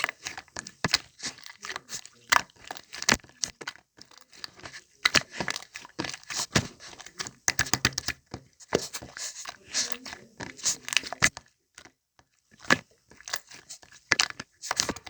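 Slime being squeezed and stretched by hand, giving irregular crackles, pops and squelchy clicks, with brief pauses about four and twelve seconds in.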